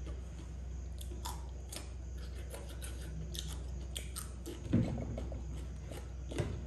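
Crisp bites and close chewing of raw cucumber slices, a series of short crunchy clicks, with a louder knock about five seconds in.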